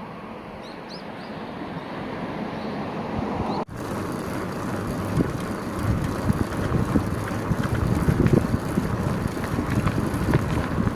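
Wind buffeting the microphone, growing louder. About four seconds in it cuts out for an instant, then comes back as a heavier, gusty rumble with irregular peaks.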